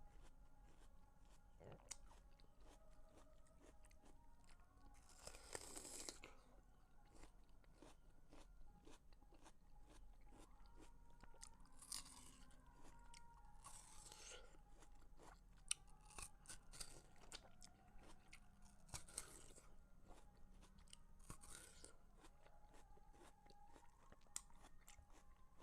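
Faint, close-up chewing of juicy watermelon: a run of small crisp crunches and wet clicks, with about five longer, hissy bites or slurps spread through.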